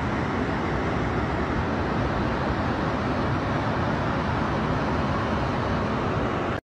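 Floodwater rushing in a torrent down a street, a steady, even rushing noise that holds at one level and cuts off abruptly at the end.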